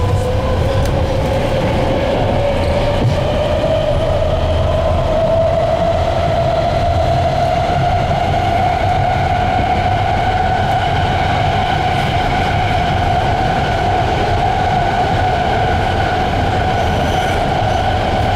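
BART train heard from inside the passenger car: a steady rumble from the wheels and running gear, with a whine that rises in pitch over the first several seconds and then holds steady as the train gathers speed and runs on.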